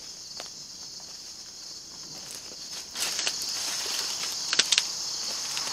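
Insects chirring steadily in a high, even band that swells about three seconds in, with light footsteps and rustling in the brush and three quick sharp clicks about four and a half seconds in.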